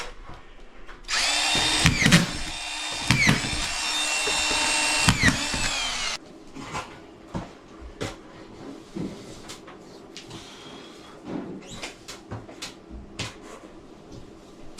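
Power drill running for about five seconds, its whine dipping in pitch a few times as it comes under load, then stopping. Scattered clicks and knocks follow.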